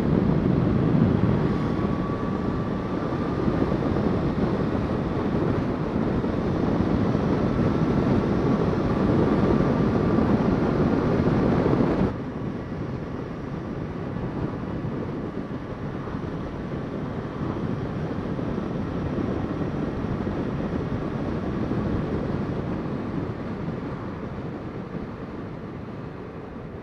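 Motorcycle at road speed: a steady rush of wind, engine and road noise. It drops suddenly to a quieter, duller level about twelve seconds in, then grows quieter still near the end.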